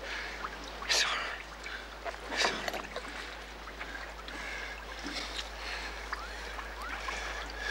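Water slapping and sloshing against a boat's hull, with two sharper splashes, one about a second in and another about two and a half seconds in.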